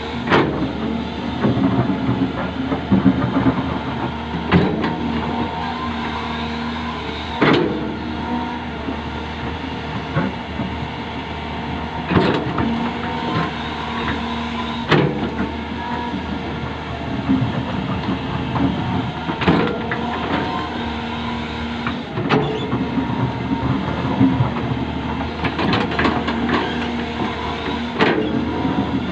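Hydraulic excavator's diesel engine running steadily under load, with sharp metal clanks every few seconds as the bucket digs and spreads fill soil.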